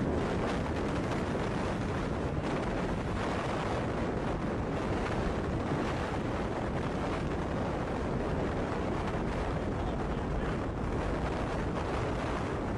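Steady rush of strong tornado wind buffeting the microphone.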